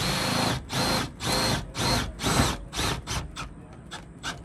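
Power drill driving a screw into the top of an RV awning arm with repeated short trigger pulls, each a brief whine that rises and falls. The last few pulls are quick and short as the screw goes home.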